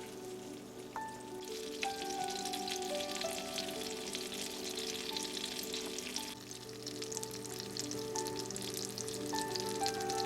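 Food sizzling and crackling in hot oil in a frying pan. The crackle is heaviest from about a second and a half in until about six seconds in, then lighter, with soft background music.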